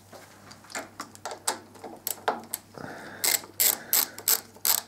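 Ratchet wrench clicking as 6 mm Allen bolts are slackened off, in two runs of quick strokes about four a second with a short pause between them.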